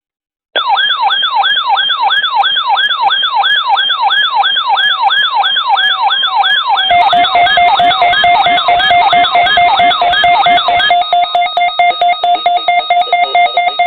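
NOAA Weather Radio warning alarm sounding for its weekly test, an electronic siren. It starts about half a second in with fast rising whoops, about three a second. About seven seconds in a steady tone joins them. Near eleven seconds it changes to a rapid pulsing beep of several tones.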